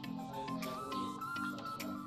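Background music: a light instrumental tune with repeating chords, a melody line and a steady ticking beat.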